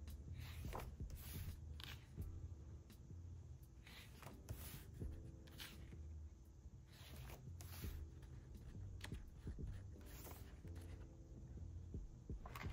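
Pages of a photo book being turned and pressed flat by hand: paper sliding and rustling in short strokes every second or so, over faint lofi background music.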